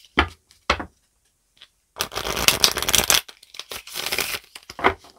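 A deck of tarot cards being shuffled by hand. Two light taps come first; then, from about two seconds in, the cards rattle and riffle in two quick runs, with a few more taps near the end.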